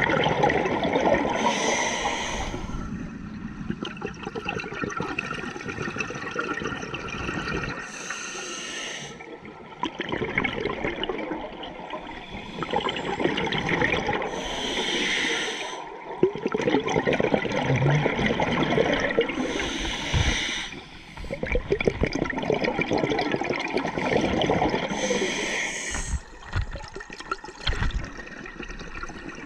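Scuba diver breathing underwater through a regulator: a short hissing inhale about every five to six seconds, each followed by a longer gurgling rush of exhaled bubbles.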